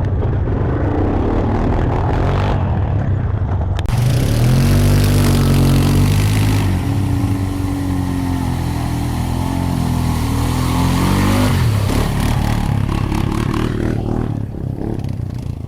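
ATV engine revving hard, its pitch climbing and falling for several seconds in the middle, as the quad is ridden through a flooded mud trail, with a rush of water noise over it.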